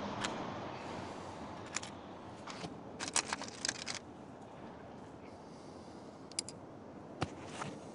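Handling noise from rough clear stones and a plastic bag being picked up and moved: scattered sharp clicks and rattles, with a dense run of them about three to four seconds in. Faint steady background noise sits under the clicks and fades away.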